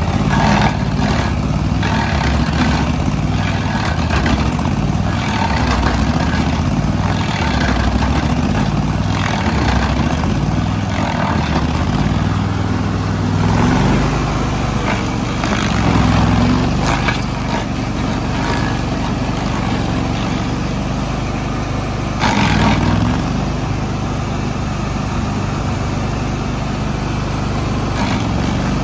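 Bandit ZT1844 stump grinder's gas engine running steadily up close, its pitch shifting a little.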